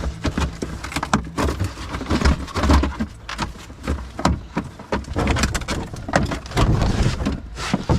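Handling noise of things being pushed and shoved into place in a car: irregular knocks, clicks and rustling with dull low thuds throughout.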